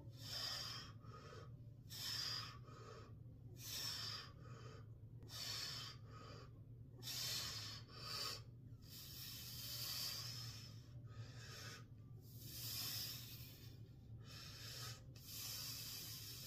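A man breathing hard in and out, a breath about every second or so, as he swings 10 lb Indian clubs, over a steady low hum.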